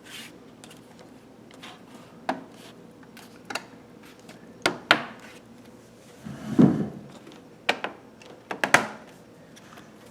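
Scattered sharp clicks and knocks of hard objects being handled, with a duller, lower thump about six and a half seconds in.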